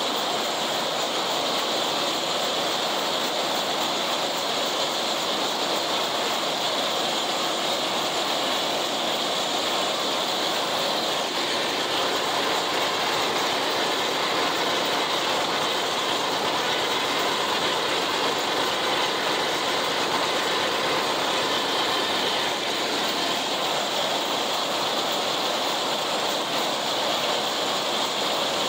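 John Deere 70 two-cylinder tractor pulling an International 990 haybine through standing hay, heard from the tractor seat. The haybine's reel, sickle and conditioner give a steady mechanical clatter and rattle over the engine running under load.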